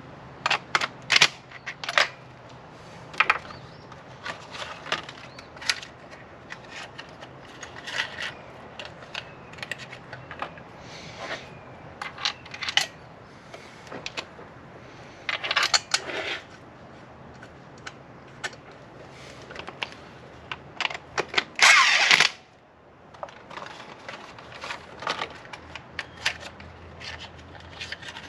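Metal clicks and clinks of hand tools and spark plugs being handled while plugs go into an engine, scattered and irregular, with a louder rattle lasting under a second about three-quarters of the way through.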